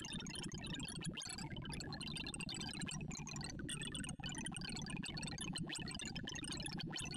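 Sonified sorting algorithm: a rapid, unbroken stream of short synthesized tones at jumping pitches, each tone voicing an array value as ArrayV's Batcher's odd-even merge sort compares and swaps elements, over a steady low hum.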